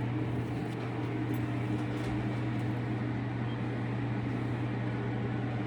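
Motor-driven fan running with a steady low hum.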